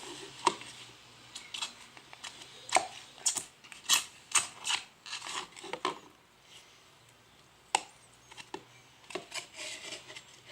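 Slime being mixed and worked: irregular sharp, sticky clicks and short scrapes, with a lull of about a second and a half just past the middle.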